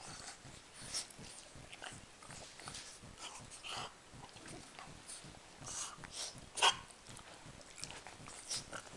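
A French bulldog and a Maltese terrier play-wrestling: a string of short grunts, mouth noises and scuffles at irregular moments, with one sharper, louder sound about two-thirds of the way through.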